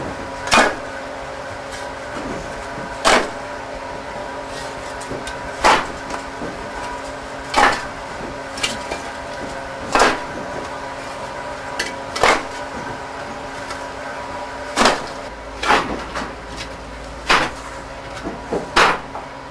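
Fired clay bricks knocking and clinking as they are set down one after another on a handcart's load, a sharp clack every couple of seconds. A steady hum runs underneath.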